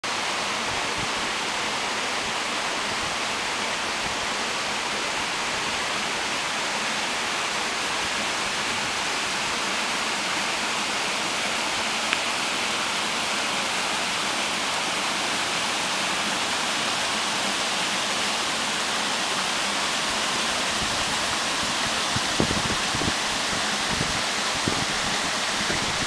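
Steady, even rushing hiss of a woodland waterfall and stream. A few low thumps near the end.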